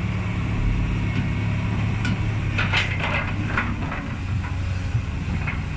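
Kobelco SK200 excavator's diesel engine running steadily under work, with a cluster of short knocks and clatters about two to three and a half seconds in.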